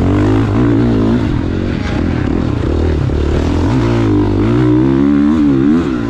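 KTM SX-F four-stroke motocross bike engine under the rider, revving hard, its pitch rising and falling repeatedly as the throttle is opened and rolled off.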